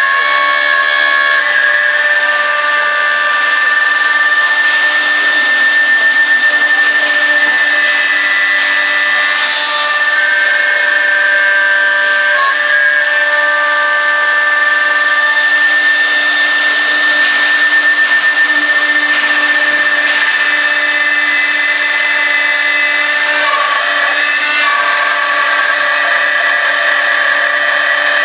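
CNC router spindle running steadily while cutting, with a high whine over machining noise.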